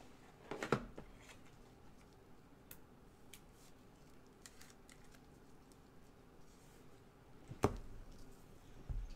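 Trading cards being handled at a table: scattered light clicks and rustles of cards sliding and being set down, with two louder sharp taps, one just under a second in and one near the end.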